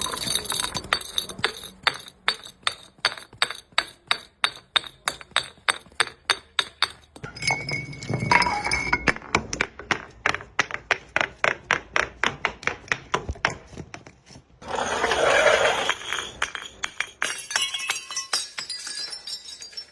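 A glass bottle clinking against step after step as it tumbles down stairs, a steady run of sharp strikes about three or four a second, with a denser burst of noise about 15 seconds in.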